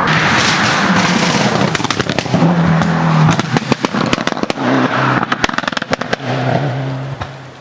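Racing car engine revving, with a fast string of sharp exhaust pops and bangs through the middle before it picks up again near the end.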